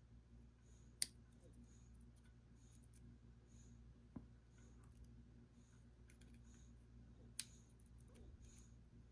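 Near silence with a few light clicks of small lock parts (pin-tumbler pins, spools and springs from a disassembled lock) being handled. Two sharper clicks come about a second in and again near the end.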